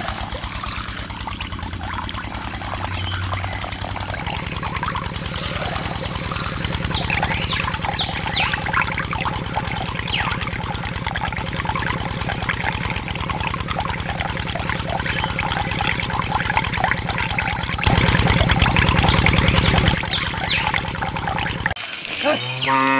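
Water pouring from a pipe and splashing over a small plastic toy tractor as it is rinsed, over a steady low hum. Near the end a cow moos.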